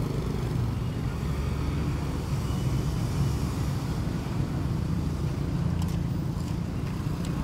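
Steady low rumble of a busy street food stall, with a few light clicks of a metal spatula against a wok near the end.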